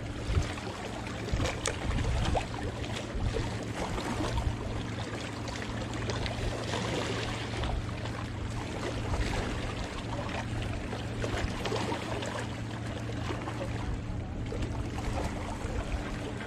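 Small waves lapping and trickling against shoreline rocks, over a steady low hum.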